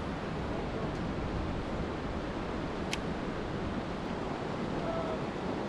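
Steady rush of river water running over a nearby rapid, with a single sharp click about three seconds in.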